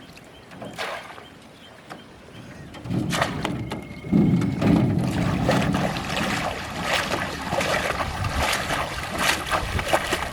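Water splashing and knocking around a small boat, with many short knocks and clicks. It grows louder about three seconds in.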